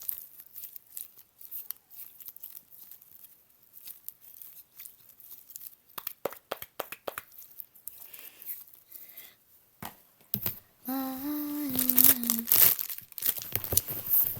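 Fingers tapping and squeezing an ice-cream-shaped foam squishy toy: a run of soft clicks and crackly rustles. About eleven seconds in, a girl hums a short tune over louder crackling.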